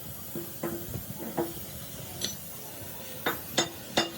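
Hammer striking a steel part, a series of sharp metallic clanks that each ring briefly. The blows come irregularly at first, pause, then fall quicker, about three a second, near the end.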